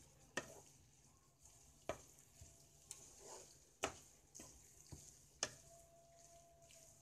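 Chicken and vegetables sizzling faintly in a frying pan as a spatula stirs them, with sharp knocks of the spatula against the pan about every one and a half seconds.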